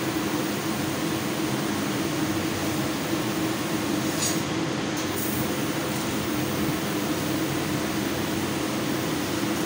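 CNC laser cutting machine cutting a pattern into steel sheet: a steady hiss over a constant machine hum, the upper hiss dropping out briefly about halfway through.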